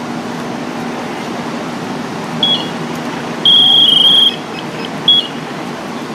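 High-pitched electronic alarm beeping from a firefighter's SCBA breathing apparatus as it is handled on the ground: a short beep, then a longer tone of nearly a second that steps slightly down in pitch, then another short beep. Under it, the steady hum of the idling fire engine.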